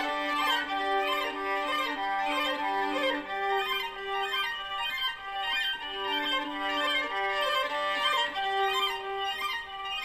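Background music: a violin playing a melody over held lower notes.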